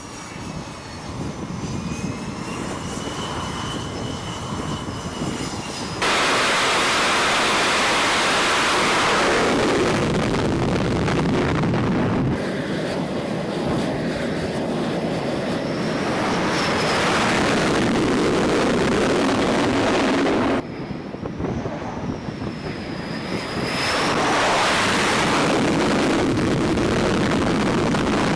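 Jet engines of F/A-18 fighters on a carrier flight deck: a loud, steady roar as the jets run at high power and launch, with a high turbine whine that glides up and down in pitch. The roar jumps abruptly louder or quieter several times.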